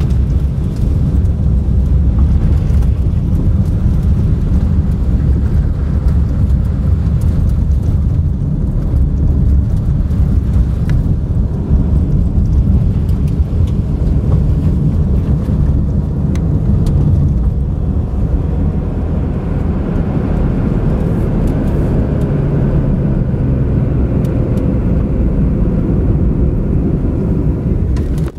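A car driving, heard from inside the cabin: a steady low rumble of engine and tyres on a road covered in mud and storm debris, with scattered sharp clicks.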